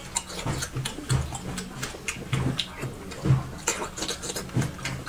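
Close-miked mouth sounds of someone eating seafood: irregular wet chewing, smacking and sucking with many small clicks.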